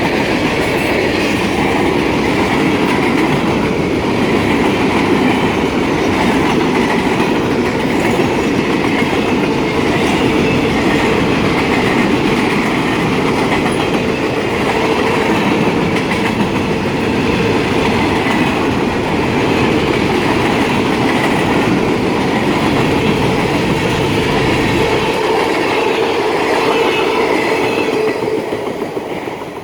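Freight train's cars rolling past at speed, loud and steady, with a squeaking wheel somewhere in the consist. The noise falls away near the end as the train goes by.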